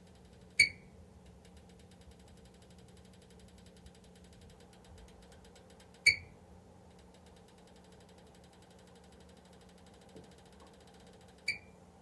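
HELLER electric heater making its abnormal noise: sharp metallic ticks with a brief ring, three of them about five and a half seconds apart, over a faint steady hum.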